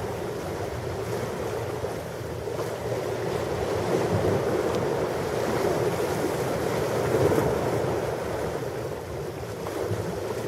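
Ocean waves washing on a shore in a continuous, slowly swelling and ebbing rush.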